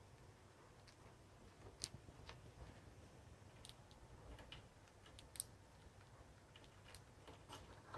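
Budgies making faint, irregular sharp clicks with their beaks, the two loudest about two seconds in and just past five seconds.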